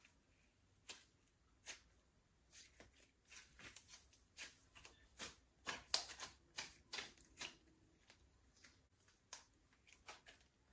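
Slime being mixed by hand, crackling with quick, irregular clicks and pops that come thickest in the middle.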